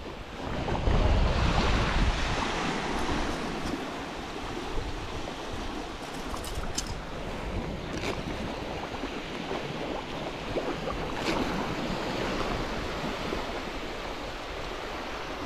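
Small waves lapping and breaking on a sandy shoreline, with wind rumbling on the microphone; a little louder in the first few seconds.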